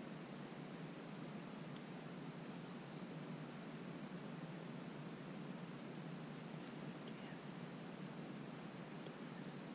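Insects holding one steady, high-pitched drone, faint, over a low even hiss.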